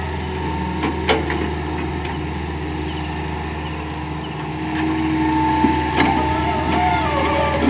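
Tata Hitachi Zaxis 210 hydraulic excavator's diesel engine running steadily under digging work, with a steady hydraulic whine coming in about halfway through as the loaded boom lifts and swings, and a few sharp knocks.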